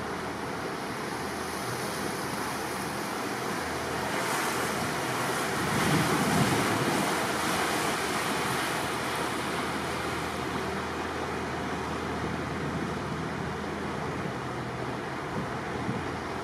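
Steady rush of wind and water past a cruising boat, with a faint low engine hum underneath; the rush swells louder for several seconds a few seconds in.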